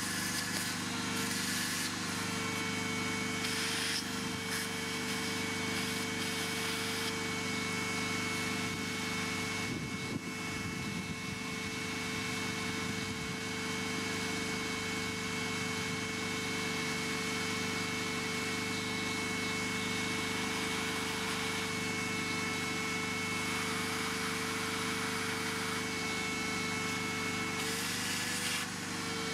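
Steady machine hum holding one constant pitch, dipping briefly about a second in and again near the end.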